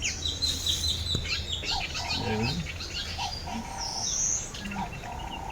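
Birds chirping and calling, many short chirps with a rising whistle about four seconds in.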